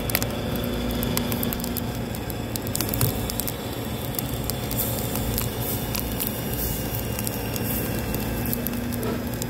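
Cebuchon (rolled pork belly) spit-roasting over hot charcoal, sizzling steadily with many small sharp crackles and pops from its fat-glazed skin and the coals.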